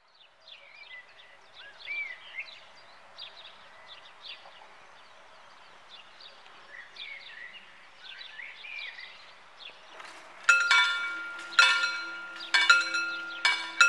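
Birds chirping. About ten seconds in, the crossing's two electromechanical warning bells (1977 Läutewerke) start ringing, with loud metallic strikes roughly once a second, unevenly spaced because the two bells are out of step. A steady low hum runs beneath them. The bells are the warning that the full barriers are closing for a train.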